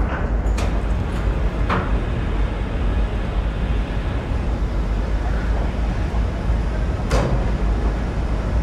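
Steady low rumble of the Coho ferry's engines running, with a few brief knocks about half a second, nearly two seconds and seven seconds in.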